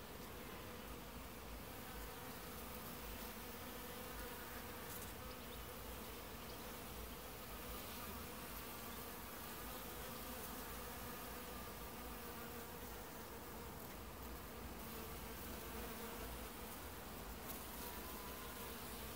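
Many bees and other insects buzzing together as they feed at flowering ivy: a steady, wavering hum of overlapping wingbeats.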